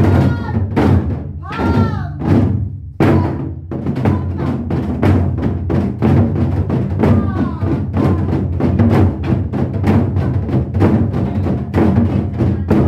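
Modeumbuk, a set of Korean barrel drums, beaten in a fast, dense run of strokes over a backing music track with a singing voice.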